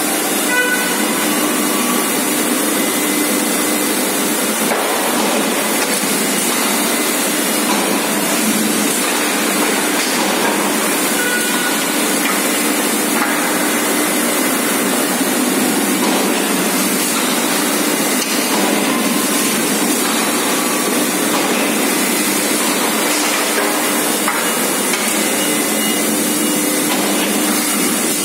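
Forging-shop machinery running: a loud, steady hiss and hum with a constant low tone, and a few faint knocks of metal.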